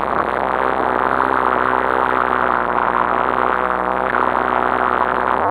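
RC car's motor running at a fairly steady pitch, heard muffled and distorted from inside a sealed action-camera housing.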